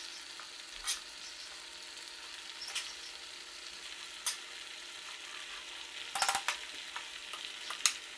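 Chicken sizzling in oil in a pot with a steady hiss, while a serving spoon knocks and scrapes against the pot now and then as cooked basmati rice is spooned on top, with a quick cluster of knocks about six seconds in.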